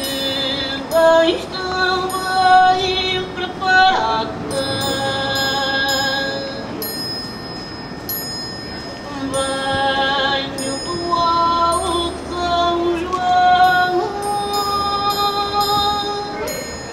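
Music: a slow melody of long held notes that slide into one another, over repeated high chiming notes.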